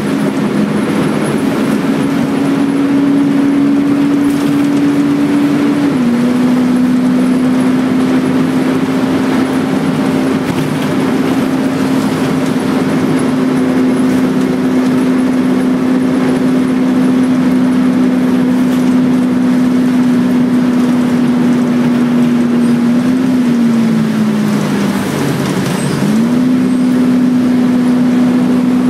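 Wright Renown-bodied Volvo B10BLE single-deck bus under way, heard from inside the passenger saloon: a loud, steady engine drone with a held whine. The whine steps down in pitch about six seconds in, then dips and climbs back again near the end.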